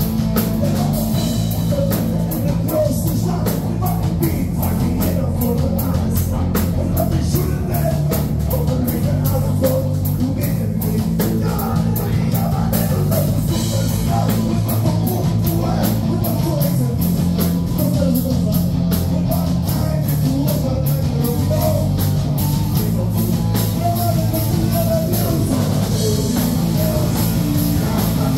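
Live rock band playing: electric guitars, keyboard and a drum kit with steady cymbal strikes, with a singer's vocals over the top.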